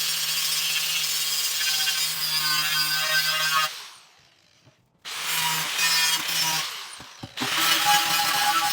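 Angle grinder fitted with a wire wheel scouring old JB Weld epoxy off a steel motorcycle fuel tank: a steady motor hum under a harsh scratching hiss. It cuts out a little under four seconds in, starts again about a second later, and eases off briefly a couple of seconds after that.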